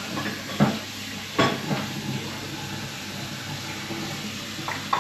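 Kitchen noise: two sharp knocks in the first second and a half, then a steady hiss.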